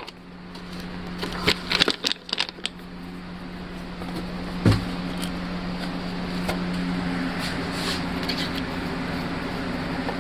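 Metal lathe running with a steady hum that builds over the first few seconds. A quick cluster of clicks and taps comes between one and three seconds in, and a single knock about halfway through.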